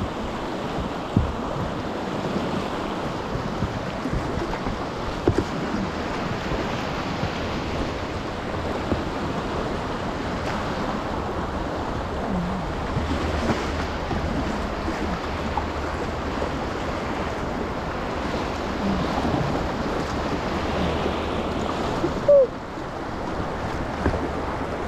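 Whitewater river rapids rushing steadily, with a few light knocks and a brief louder sound near the end.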